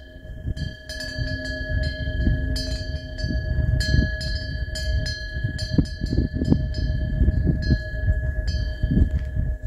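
Bronze Korean temple wind bell (pungyeong) with a fish-shaped vane, swung by the wind so its clapper strikes again and again, each strike adding to a clear ring that lingers. A heavy low rumble of wind on the microphone runs underneath and is the loudest part.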